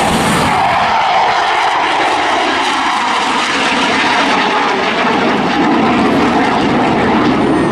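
Eurofighter Typhoon FGR4's twin turbofans and a Spitfire's piston engine in a close pair flypast, a loud steady roar whose pitch slides slightly lower over the first few seconds.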